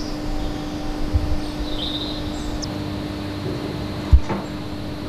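Slurry separator machinery running steadily, a constant mechanical hum with one steady tone under a noisy wash. There is a low thump about four seconds in, and a few faint high chirps near the start.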